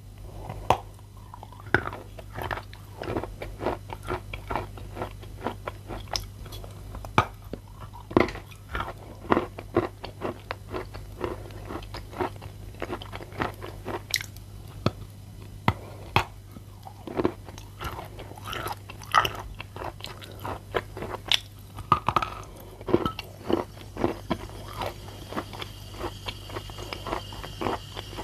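Teeth biting into and chewing a block of moistened edible chalk: a dense run of sharp, wet crunches, two or three a second, with a faint steady low hum underneath.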